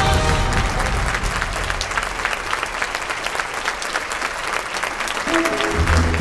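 A large audience applauding, many hands clapping together. Near the end, the next piece of music starts up under the applause.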